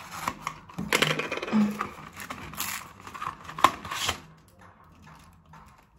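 An SD card's cardboard-backed plastic blister pack being handled and pried open by hand: rustling and crinkling with scattered sharp clicks, the loudest click about three and a half seconds in, then quieter handling.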